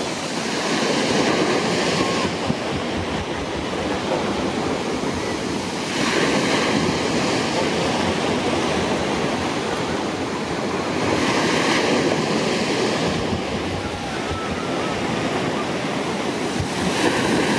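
Loud, steady rush of water, swelling about every five seconds.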